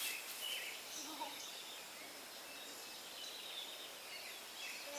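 Quiet outdoor ambience with faint, scattered bird chirps and a few faint, distant voices about a second in.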